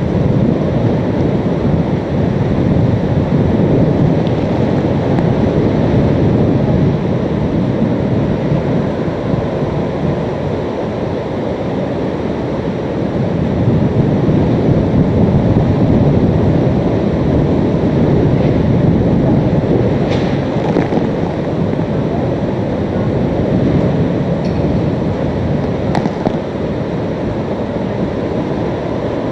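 Hurricane-force wind blowing hard and steadily, buffeting the microphone with a deep rushing noise that eases and builds again.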